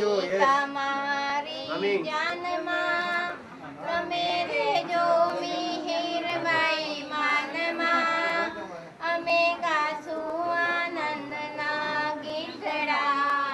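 A woman's high voice singing a song with long held, wavering notes, over light music.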